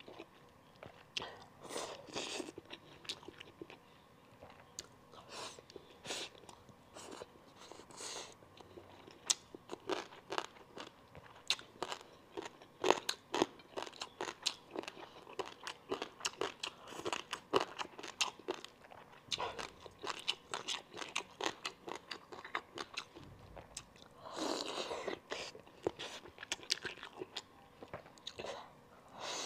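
Close-miked mouth noises of a person chewing braised monkfish offal and rice: many wet, crisp clicks and crunches coming at an irregular pace, with a longer, noisier stretch of about a second and a half near the end.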